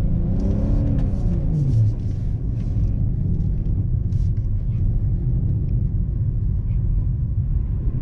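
BMW M340i's turbocharged inline-six and its winter tyres rumbling steadily while driving through deep snow. The engine note rises slightly and then falls away over the first two seconds, with faint crackles of snow early on.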